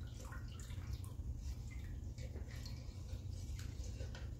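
Water swishing faintly as salt is stirred with a ladle in a stainless steel stockpot, dissolving it for a dye bath, with a few light splashes and ticks over a low steady hum.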